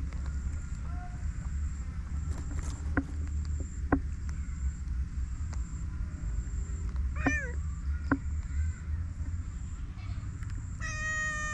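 A cat meowing twice: a short call about seven seconds in and a longer, steady meow near the end. Under it runs a low steady rumble, with a few sharp clicks.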